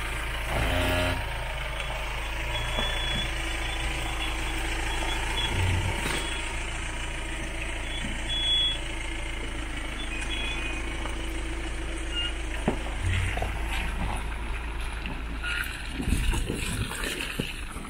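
Vehicle engine running steadily while driving, with a few short high-pitched tones early on and a cluster of knocks and rattles near the end.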